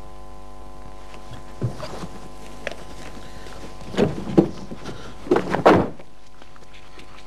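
A series of thuds and knocks, the loudest in two short clusters about four and five and a half seconds in, over a steady electrical hum.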